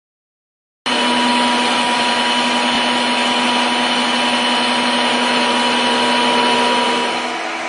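Universal milling machine running a disc cutter on its horizontal arbor through a metal workpiece: a steady machining whine with cutting noise. It starts abruptly about a second in and eases slightly near the end.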